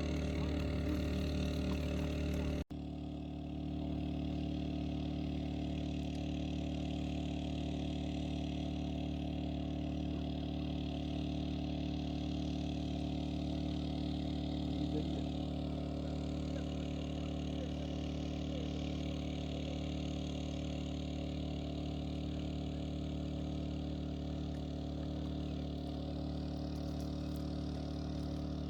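Steady hum of an engine running at a constant speed, holding one even pitch throughout, with a brief sharp dropout about three seconds in.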